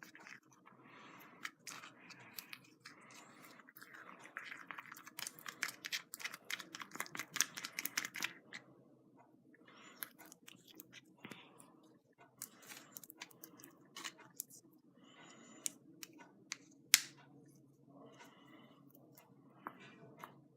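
Sticky homemade glue slime being mixed and worked, giving quiet wet clicks, snaps and squelches in irregular runs, thickest in the middle, with one sharper snap near the end.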